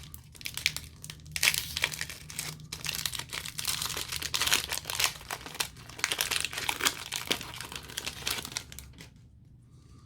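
Foil wrapper of a Pokémon booster pack crinkling and crackling as it is handled and opened, dying away about nine seconds in.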